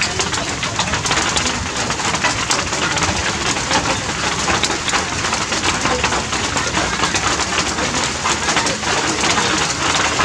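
Steady rain pattering on tree leaves: a dense, unbroken spatter of countless small drop hits.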